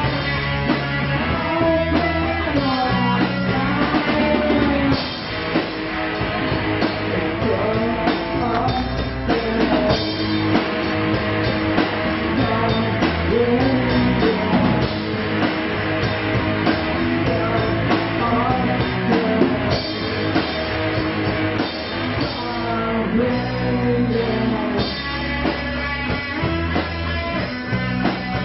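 Live rock band playing: electric guitar, bass guitar and drum kit, with a voice singing over them.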